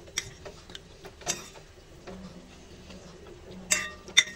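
A spoon clinking against a soup bowl four times while eating, the last two clinks ringing briefly.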